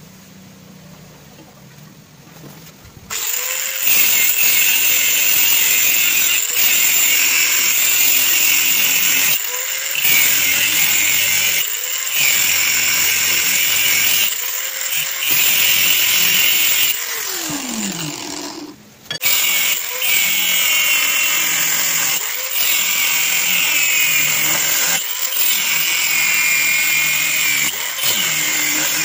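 Angle grinder with a cut-off disc cutting through a steel bar, a loud steady high whine over a grinding hiss. It starts about three seconds in, eases off briefly several times, and a little past halfway spins down with a falling pitch before starting up again.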